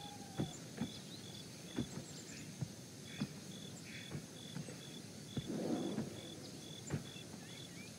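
Outdoor nature ambience: a high insect chirp repeating evenly about twice a second, with scattered faint bird chirps and occasional sharp clicks.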